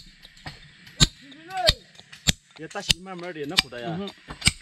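A series of sharp knocks, about one every half-second to second, like repeated blows of a tool, with voices talking near the end.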